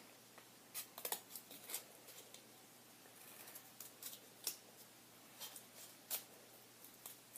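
Scissors snipping through cardboard: a dozen or so short, faint snips at irregular intervals as a small rectangle is cut out.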